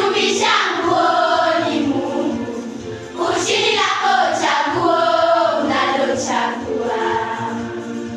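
Primary-school girls' choir singing together in unison phrases, accompanied by an electronic keyboard playing steady held notes beneath the voices.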